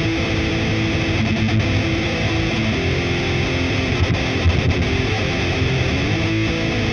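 Epiphone Les Paul Classic Worn electric guitar played through a high-gain amp simulation: heavily distorted metal riffing that goes on without a break.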